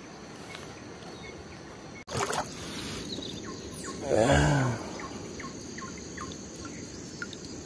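Outdoor rural ambience with scattered short bird chirps. One louder, brief pitched call rises and falls about four seconds in.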